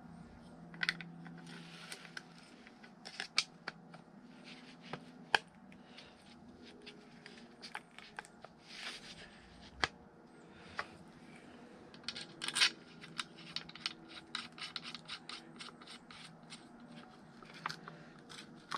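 Hands handling and fitting blend door parts into a plastic HVAC heater box: scattered sharp clicks and taps with short scrapes and rustles, over a faint steady hum.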